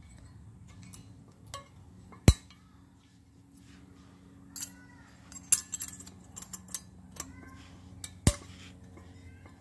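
Metal brake pad abutment clips snapping into a 2016 Acura MDX front caliper bracket: two sharp snaps, about two seconds in and again near the end, with light metallic clinks between.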